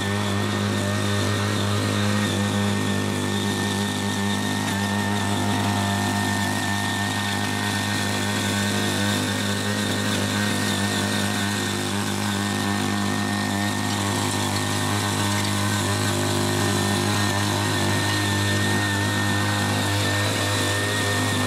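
Small petrol engine of a CY80 foldable mini tiller running steadily at high speed while its eight rotary blades till untilled soil.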